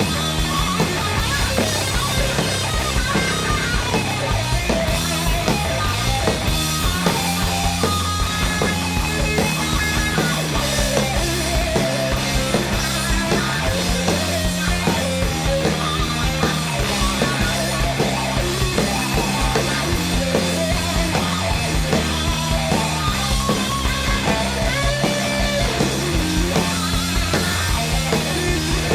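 Loud rock music playing continuously, with a bass line stepping from note to note under guitar and drums.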